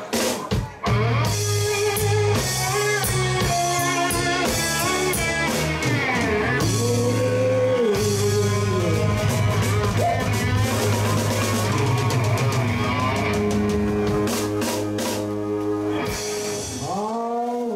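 Live rock band playing an instrumental passage: electric guitar, bass and drums with cymbals. A run of quick drum hits comes near the end, and then the music drops away.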